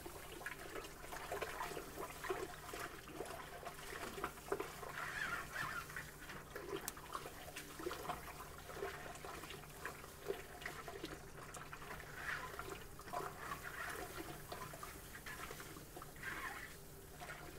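Crushed malt pouring from a plastic bucket into hot water in a mash kettle while it is stirred in, a continuous wet sloshing and rustling: mashing in.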